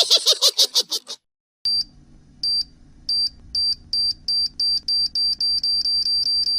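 Electronic beep sound effect repeating and speeding up, like a countdown timer: slow beeps at first, quickening to about four a second. It follows a brief run of quick short notes in the first second.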